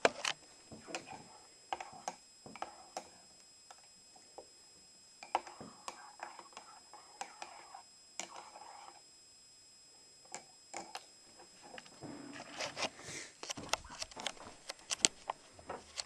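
Kitchen handling sounds: scattered light clicks and knocks with a few brief stretches of scraping and rustling.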